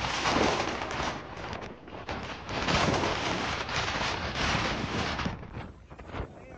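Loud rushing noise of wind and moving floodwater around a rescue boat, swelling and fading, and dropping lower about five seconds in.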